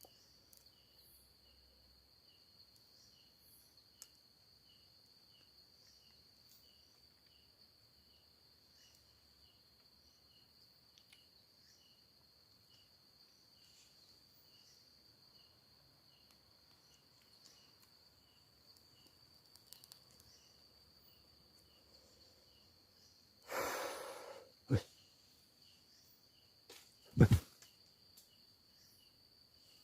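Night insects: a steady high trill with a faint chirp repeating about every second and a half. Near the end comes a short rush of noise, then a couple of knocks, the loudest a dull thump.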